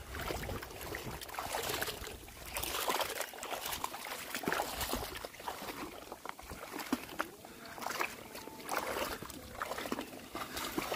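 Shallow flood water sloshing and splashing in irregular bursts as a person wades and lifts and sets down a bamboo polo fish trap.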